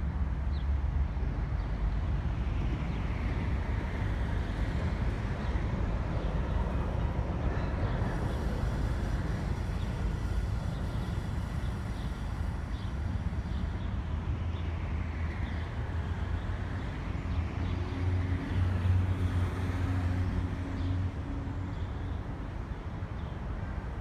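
Diesel-hauled train pulling away down the track, a low rumble that eases off toward the end, with road traffic passing overhead twice.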